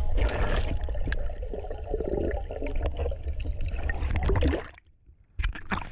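Water sloshing and bubbling around an underwater camera while snorkeling, a loud, rough, splashy rush with a deep rumble. Just before 5 s it cuts out almost completely, then comes back as a short splash near the end.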